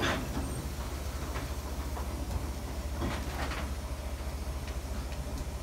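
A 2 ft gauge narrow-gauge steam locomotive moving off slowly with its train, steam hissing from the cylinder drain cocks in short bursts, one at the start and another about three seconds in, over a steady low rumble.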